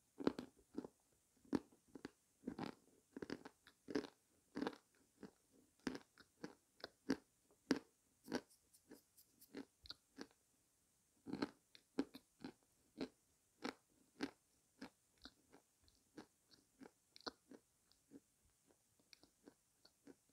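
Close-up mouth sounds of a person chewing dry, crunchy pieces of edible clay, a steady run of small crunches about two or three a second, with a short lull about halfway through.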